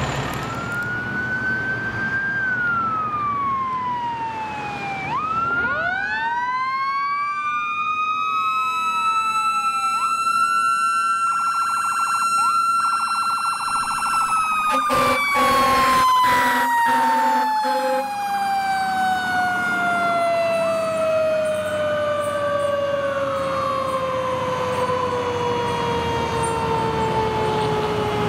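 Fire truck siren wailing: several rising wind-ups and falls, then a long, slow falling wind-down through the second half. Blasts of an air horn sound about halfway through.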